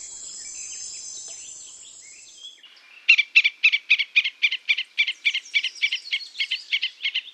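A steady, high-pitched insect drone like crickets, fading out about two and a half seconds in. Then a rapid series of sharp chirps, about four or five a second, keeps on to the end.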